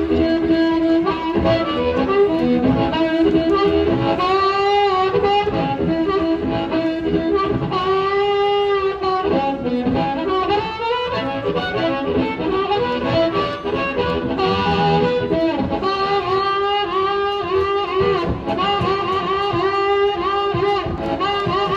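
Blues harmonica played into a cupped microphone and amplified through the PA. It plays a solo line of bent, wavering notes, and in the last few seconds a fast run of short repeated notes.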